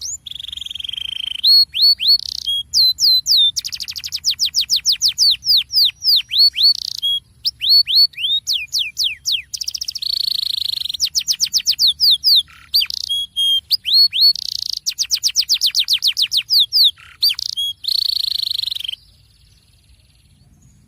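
Domestic canary singing a long, fast song of rapid trills made of quick sweeping notes mixed with buzzy held phrases, played as a lure song to set other canaries singing. It stops about two seconds before the end.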